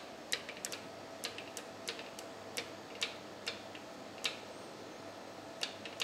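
Light, irregular metallic clicks and taps as small steel parts (a detent ball, spring and set screws) are handled and fitted onto the cast-iron housing of a milling machine gearbox.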